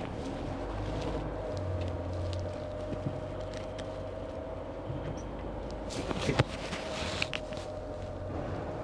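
Motorhome creeping forward in low gear, heard from inside its cab: a steady low engine and drivetrain hum, with scattered clicks and rattles, the sharpest cluster a little past six seconds in.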